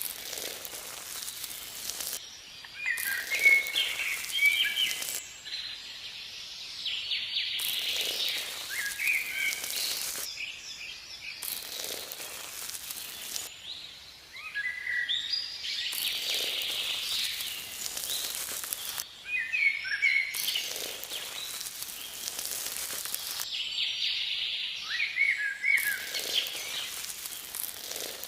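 Birds chirping in short repeated phrases, over a hiss that starts and stops abruptly every couple of seconds.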